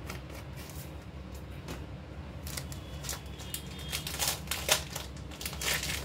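A plastic packet being handled off-camera, crinkling and rustling in short bursts from about halfway through, over a steady low hum.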